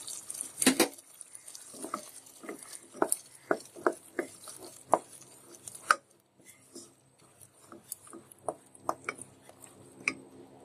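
Spatula stirring thick korma gravy in a nonstick pot, with a string of soft knocks and scrapes against the pot's sides and bottom. The knocks are sparser and quieter in the second half.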